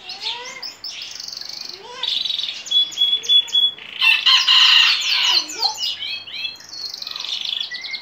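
Canary singing in full song: fast rolling trills and chattering runs, a held whistled note a little before the middle, and its loudest, densest phrase just past the middle. Its keeper takes the song as a sign the bird is ready for the breeding season.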